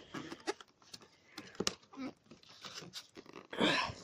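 Plastic blister packaging being handled and peeled open: scattered small clicks and crinkles, with a louder rustling burst near the end.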